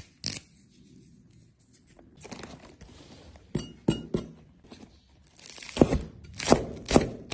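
Knife knocking on a cutting board as herbs are cut, in irregular strikes that come about every half second near the end, with soft rustling between them.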